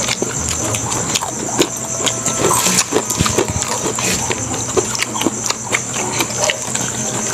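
Close-up eating sounds from several people eating with their hands: wet chewing and lip smacks in a quick, irregular run of small clicks. A steady high hiss runs underneath.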